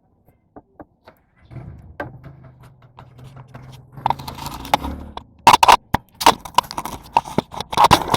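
Small hand tools clicking, tapping and scraping on the metal of a scooter's throttle body while its screws are undone to take out the idle speed control valve. The clicks are sparse at first and become loud and frequent about halfway through, with a low hum for a few seconds before that.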